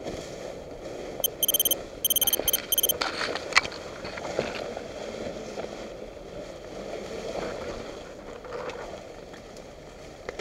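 Tall grass and leafy brush rustling and scraping against the body and gear of a person pushing through on foot, with a sharp snap about three and a half seconds in. A string of short, high-pitched bursts between about one and three seconds in is the loudest sound.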